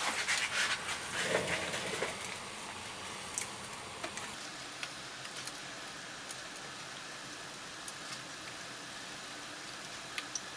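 Light rubbing and handling noise for about the first two seconds, then a steady faint hiss with a few scattered light ticks while a soldering iron works the connector pins of a circuit board.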